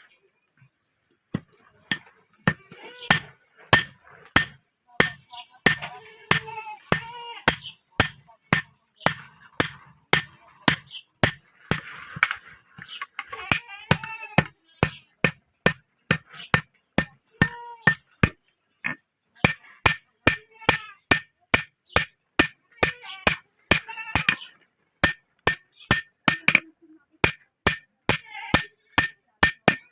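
Blacksmith's hammer striking metal on an anvil at a steady rhythm of about two blows a second, each with a short ring, as a rod is forged into a sickle.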